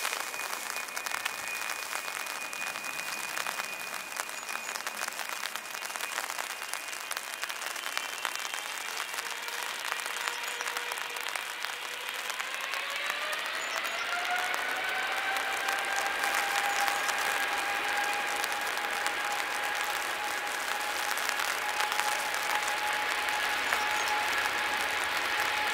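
Steady hiss of heavy rain with the whine of an Emirates Boeing 777's turbofan engines. About halfway through, the engine whine glides up in pitch and grows louder as the engines spool up toward takeoff thrust, then holds at the higher pitch.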